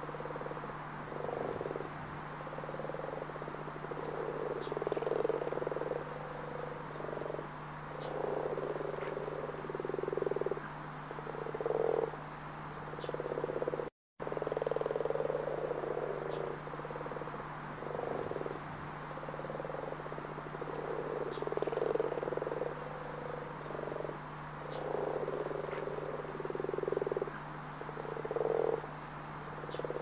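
A chorus of frogs croaking, many overlapping croaks in bursts of about a second, over a steady low hum. The sound drops out for an instant about halfway through.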